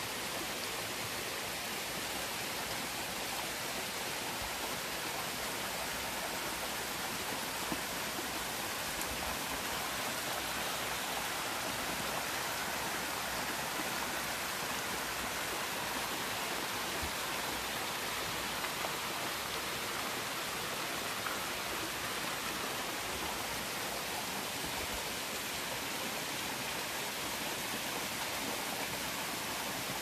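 Escondido Falls' thin cascades running down a steep mossy rock face, giving a steady, even rush of falling, splashing water.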